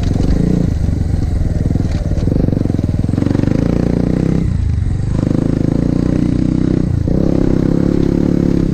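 A 150cc MiniRocket pit bike's single-cylinder engine running under throttle while riding. The engine note drops briefly twice, about four and a half and seven seconds in, then picks up again.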